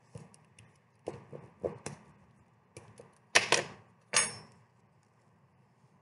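Paper and a hand tool handled over an inked piece of driftwood on the work table while a print is pressed and lifted: scattered light taps and rustles, with a few louder knocks about three and a half seconds in and one more just after four seconds, carrying a short ring.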